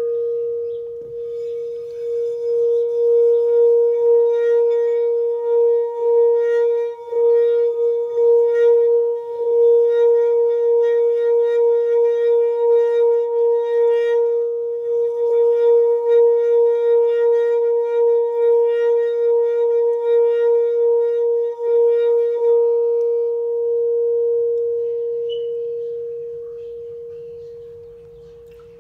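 Amethyst crystal singing bowl, partly filled with water, singing one steady, sustained ringing tone with fainter higher overtones. The tone holds level for about twenty seconds, then is left to ring and slowly fades over the last several seconds.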